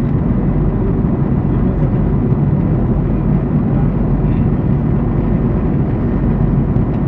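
Steady cabin noise of an airliner in flight: a constant low rumble of engines and rushing air, with faint steady tones above it.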